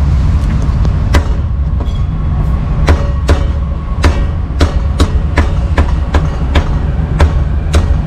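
Steel meat cleaver chopping roast duck on a thick wooden chopping block: a run of sharp chops, roughly two a second, sparser in the first few seconds, over a steady low rumble.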